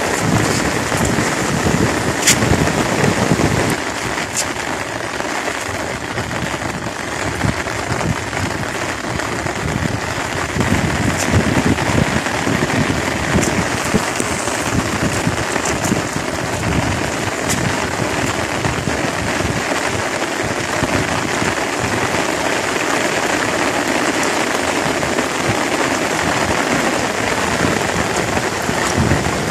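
Steady rain falling on pond water and grass, with an uneven low rumble underneath.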